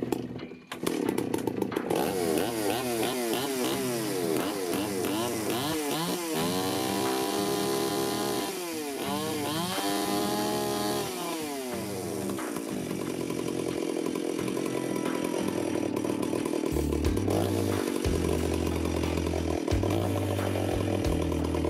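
Stihl 038 Magnum II chainsaw's 72 cc two-stroke engine running on its first fuel in many years. It comes in about a second in, revs up and down over and over for several seconds, then settles into a steadier idle. The idle still needs adjusting, and the owner thinks the carburetor may need a rebuild.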